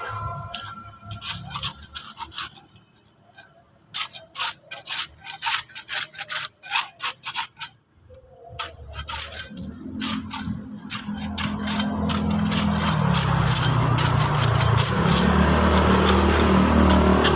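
Rapid, irregular scraping strokes of a hand tool on a wall, typical of scraping off old paint. About ten seconds in, a louder steady drone with shifting low notes takes over.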